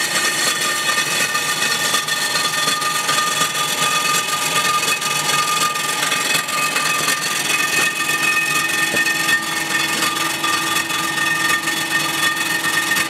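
Blockmaster 85B surfacing machine's rotating cutter taking a light two-thousandths cut across the cast-iron deck of a Willys L134 engine block. The machining noise is steady, with a few steady high whining tones over it.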